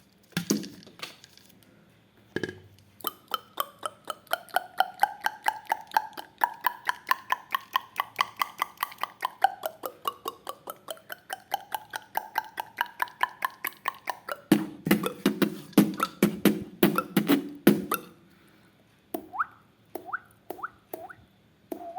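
Beatboxed water-drop effect made with the mouth: a fast run of wet tongue clicks, about four a second, whose pitch slides up and down like a tune. It turns into heavier, lower clicks, and near the end into short drips that rise quickly in pitch.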